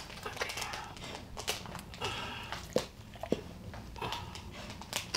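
Cloth towels rustling as they are handled, with scattered soft clicks and knocks.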